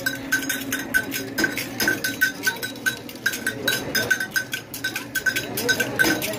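Small bells on a sugarcane juice machine jingling in a steady rhythm, about three strikes a second, as the rollers turn pressing cane into juice. Faint crowd voices run underneath.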